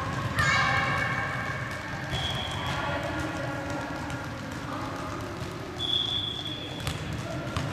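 Children's voices calling out in a sports hall, with held notes and a few knocks of balls on the floor.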